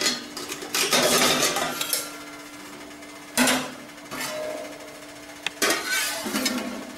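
Stainless steel idli steamer plate clattering and scraping against the steel pot as it is lifted off and tipped, with steamed rice-flour dumplings tumbling onto a steel plate: a few separate metallic knocks and rattles.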